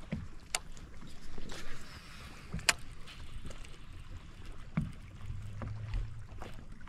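Small boat on the water: a low wash of water noise with a couple of sharp clicks and a few fainter knocks of gear against the boat.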